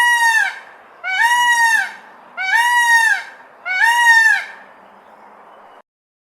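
A bird calling four times in a row, each call a loud drawn-out cry of well under a second that rises and then falls in pitch, about one and a third seconds apart.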